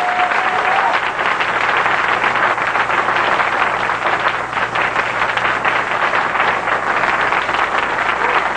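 Audience applause: a dense, steady clapping.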